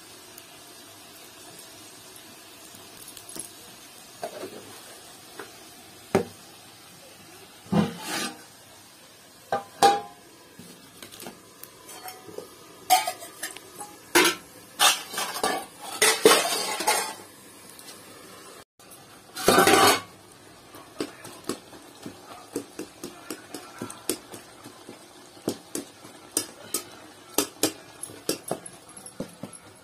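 Steel cookware clattering: a metal spatula, lid and pots knocking and scraping against a steel kadhai, in irregular knocks with a louder burst of clatter around the middle. Near the end it turns to quick, light scrapes of the spatula stirring in the pan.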